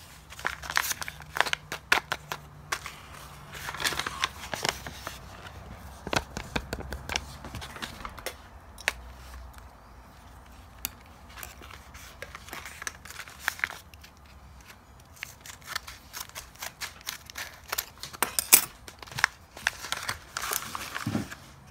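A paper blind bag being handled and crinkled, with scissors snipping to cut it open: a scattered run of sharp clicks and short rustles.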